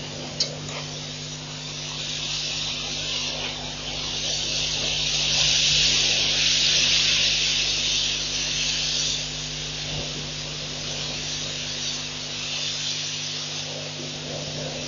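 Steady high-pitched hiss of night-time outdoor ambience over a low, even electrical hum, the hiss swelling about five seconds in and easing off again near nine seconds. A single sharp click about half a second in.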